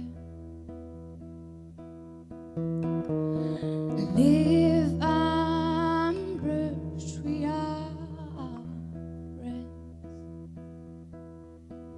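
A woman singing a slow song live to her own acoustic guitar, the guitar's low notes ringing on steadily under her voice. Her voice is loudest about four to six seconds in, then eases off toward the end.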